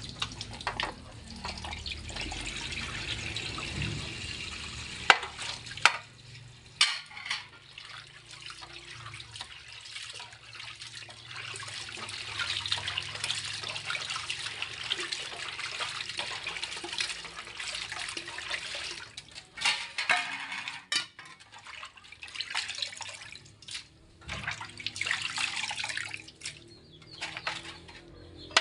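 Tap water running into a sink while raw pork is washed by hand, with a few sharp knocks of a bowl or pot against the sink.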